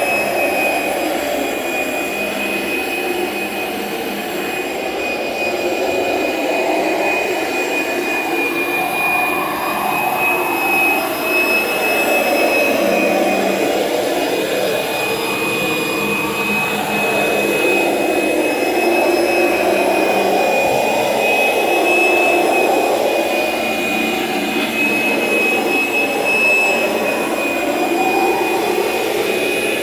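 Kirby Generation 3 upright vacuum running with its carpet shampooer attached: a steady high motor whine over a lower rush that swells and fades every few seconds.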